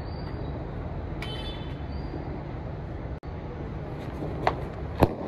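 A hand-held Diwali firecracker burning with sparks and smoke, a dud that fizzes rather than bursting properly, over steady street noise. Two sharp cracks come near the end, the second louder.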